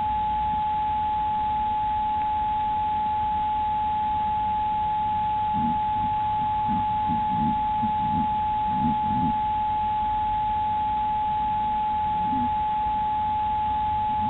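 A steady high electronic tone, typical of a trail camera's own circuit noise, with a low hiss under it. About halfway through, a roe deer buck right at the camera makes a run of soft, irregular low sounds for a few seconds as it noses at it, with one more near the end.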